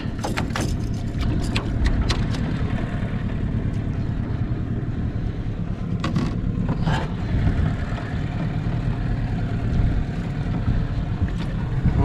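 Small outboard motor running steadily at low speed while trolling, with knocks and rattles from the aluminium boat as the line and fish are handled, the clearest about six and seven seconds in.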